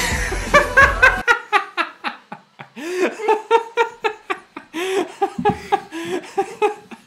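A person laughing in a long run of quick, high-pitched bursts, several a second. Music plays under it at first and stops about a second in.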